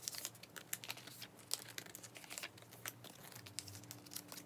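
Photocards being slid into the pockets of clear plastic binder sleeves: soft crinkling of the plastic with many light, irregular ticks and rustles.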